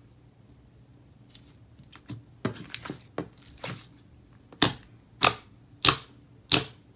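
Fingers pressing and folding a thick, creamy, semi-glossy clicky slime, giving a run of sharp clicks and pops that start about a second in. The clicks grow louder, ending in four strong ones about two-thirds of a second apart.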